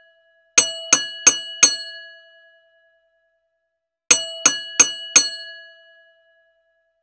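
Bell-ding sound effect for a subscribe and notification-bell animation: four quick ringing dings, then the same four dings again about three and a half seconds later, each group ringing out as it fades.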